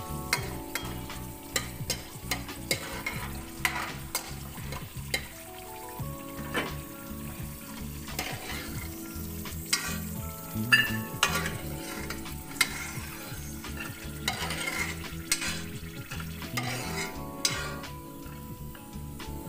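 Homemade pethe wadiyan frying in hot mustard oil in an aluminium kadhai, sizzling, while a steel spoon stirs, scrapes and clinks against the pan and lifts the fried wadiyan out.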